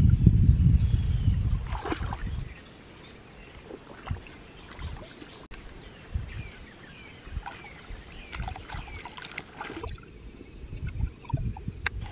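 Shallow stream water sloshing and splashing softly as hands grope along the bottom for snails, with scattered small splashes and low thuds. A loud low rumble fills the first two seconds, then fades, and birds chirp faintly in the background.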